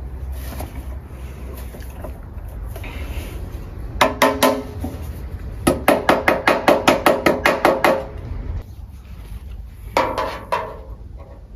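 Sheet metal of a hand-made gutter struck with a metal tool, each strike ringing: three strikes about four seconds in, a fast run of about a dozen strikes shortly after, and two more near the end.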